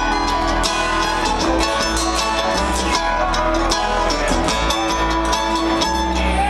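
Bluegrass string band playing live without vocals: plucked acoustic strings (banjo, mandolin and acoustic guitar) over upright bass.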